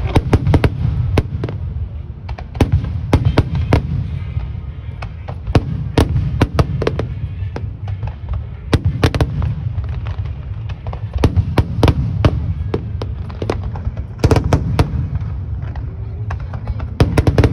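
Fireworks display: aerial shells bursting in quick succession, several sharp bangs a second, over a continuous low rumble.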